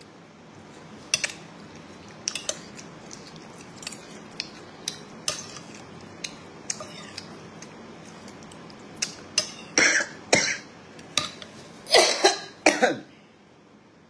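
A woman eating from a bowl with a metal spoon: scattered light clicks of spoon on bowl, then a few coughs and throat-clearing, loudest in a cluster near the end.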